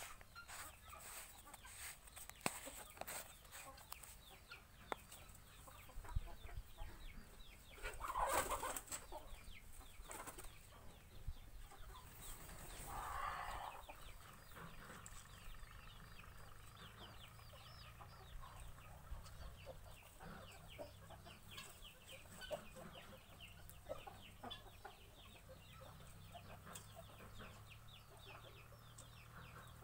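Faint clucking of chickens, with many short, high chirps throughout. There is a louder call about eight seconds in and another about thirteen seconds in.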